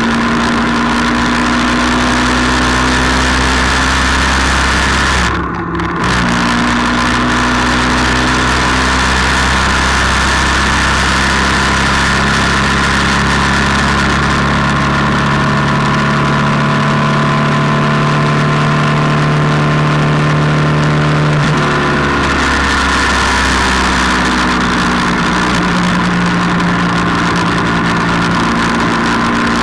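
A motor vehicle's engine running at road speed under wind and road noise. It dips briefly about five seconds in, rises slowly in pitch in the middle as it accelerates, and changes pitch abruptly a little after twenty seconds, as at a gear change.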